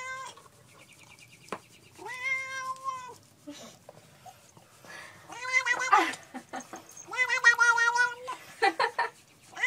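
Domestic tabby cat meowing loudly and insistently: three long, drawn-out meows of about a second each, a few seconds apart, then a couple of short meows near the end.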